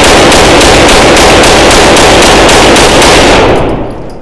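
Taurus TX22 Competition .22 LR pistol firing CCI Stinger rounds in rapid fire, about four shots a second, with the string ending about three and a half seconds in. The pistol cycles without a malfunction.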